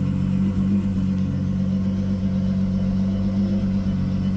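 Ferrari 812 GTS's 6.5-litre naturally aspirated V12 running at a steady idle, its exhaust giving an even low hum with no revving.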